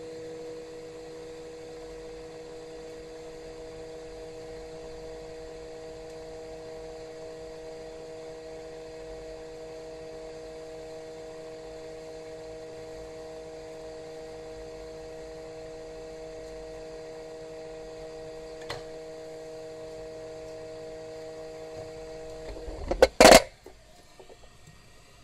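Hot-air gun running with a steady fan hum, lightly heating a phone's display to soften its adhesive so it can be lifted out without cracking. Near the end a short, loud knocking clatter comes and the hum stops.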